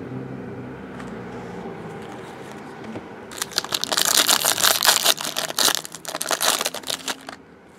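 Foil wrapper of a trading-card pack crinkling and tearing as it is ripped open by hand, starting about three seconds in and stopping abruptly about four seconds later.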